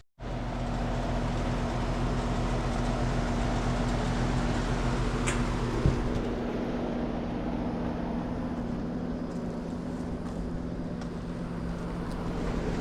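Steady hum of machinery running, a constant low drone under an even noise, with a short click about five seconds in and a thump just after.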